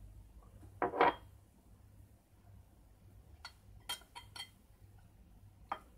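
A drinking glass set down on a marble countertop with a knock about a second in, then a few light clinks of a spoon against a ceramic plate, and one more near the end.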